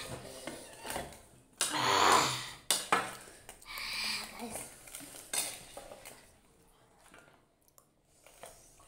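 Metal spoons clinking and scraping against plates as noodles are scooped up and eaten: a run of short, irregular clicks that thin out about two-thirds of the way through.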